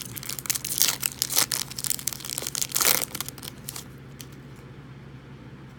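A foil trading-card pack wrapper being torn open and crinkled, a dense crackling rustle that stops about three seconds in.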